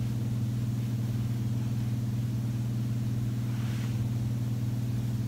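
Steady low background hum with no change in pitch or level, and a faint brief rustle a little under four seconds in.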